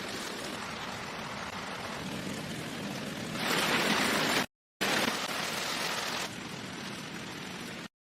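Steady hiss of water, louder for about a second past the three-second mark. It is broken twice by abrupt cuts to silence.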